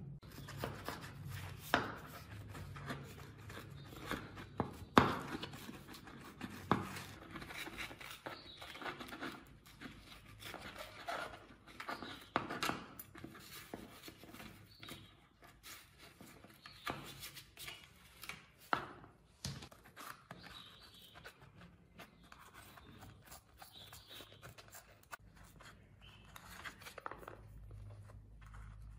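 Hand-work sounds: irregular scraping, rubbing and cutting noises with scattered sharp clicks and knocks, the loudest about five seconds in.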